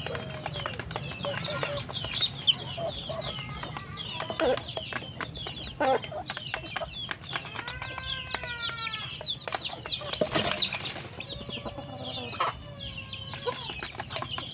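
Chickens feeding: chicks peeping steadily in short, falling, high chirps while hens cluck, with beaks tapping on the feed basin. A short noisy scuffle comes about ten seconds in.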